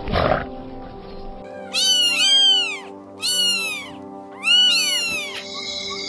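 Three loud high-pitched animal calls about a second apart, each rising and then falling in pitch, over steady background music, after a short low call at the start.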